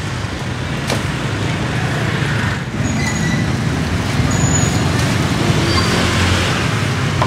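Steady street traffic noise: a continuous rumble of passing road vehicles, with a sharp click about a second in and a few brief high chirps.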